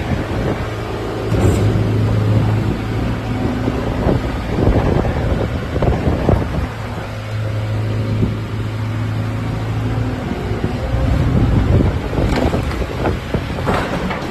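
Bobcat S130 skid steer loader's diesel engine running, its low drone growing stronger and easing off twice, with wind noise on the microphone.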